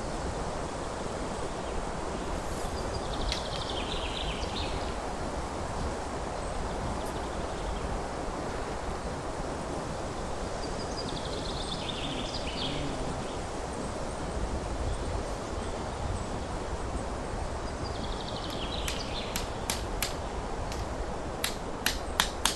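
Steady outdoor background noise with a small bird calling three times, each a short, high chattering phrase, about eight seconds apart. A run of sharp clicks comes near the end.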